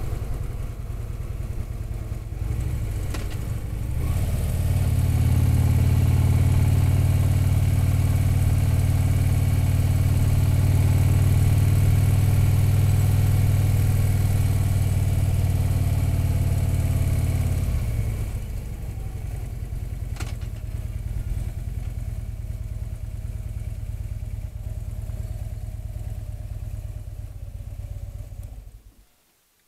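Harley-Davidson touring motorcycle's V-twin engine running at road speed, heard from the rider's seat. It grows louder about four seconds in, eases back to a lower steady level about eighteen seconds in, and cuts off suddenly near the end.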